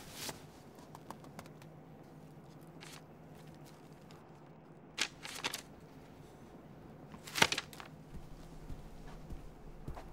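Bedding rustling as a pillow is lifted, then a spiral-bound sketchbook's paper pages being handled and turned in short crisp rustles. The sharpest rustle comes about seven and a half seconds in.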